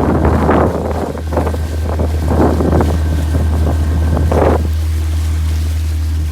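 Small boat's engine running steadily under way, with gusts of wind and water rush over it for the first few seconds; the engine drone cuts off suddenly near the end.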